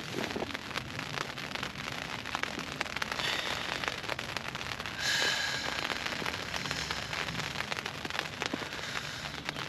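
Rain pattering on the tent from inside: a dense, steady run of small drop hits on the fabric, with a brief louder hiss about five seconds in.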